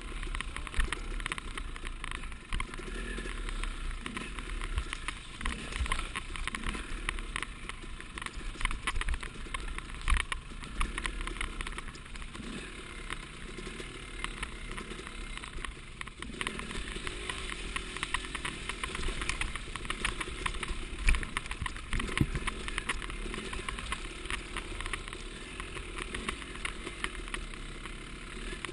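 Yamaha enduro motorcycle engine running under way on a rough trail, heard through a GoPro housing, with many short knocks and rattles from the bike over the bumps.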